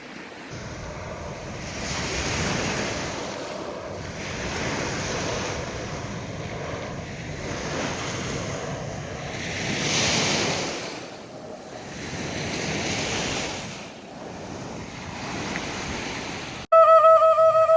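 Surf breaking and washing up a beach, swelling and easing every few seconds, with wind on the microphone. Near the end the sound cuts suddenly to a loud, long held call that starts to fall in pitch.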